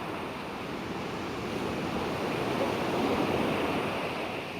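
Sea surf washing, swelling to its loudest about three seconds in and then easing off.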